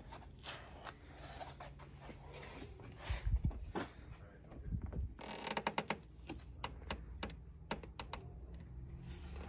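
Scattered light clicks and taps from small metal parts being handled in an engine bay, with a quick cluster of them in the second half.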